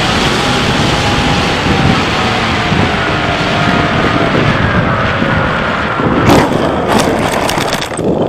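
Airflow rushing over the onboard camera of a Bixler 3 RC plane on its landing approach, with the electric motor's whine slowly falling in pitch. About six seconds in, a run of sharp knocks and scrapes as the plane touches down and slides on the grass.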